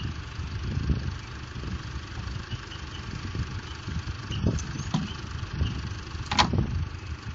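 Low rumble of a car, with a few light knocks and one sharp click about six seconds in.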